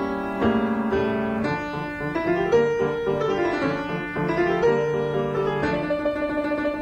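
Piano music, with notes and chords changing every second or so.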